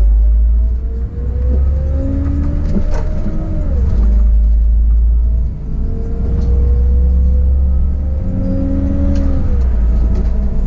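City bus engine and drivetrain heard from the driver's cab while the bus picks up speed: a heavy low rumble under a whine that rises in pitch. The whine drops sharply as the gearbox shifts up, about three and a half seconds in and again about nine seconds in.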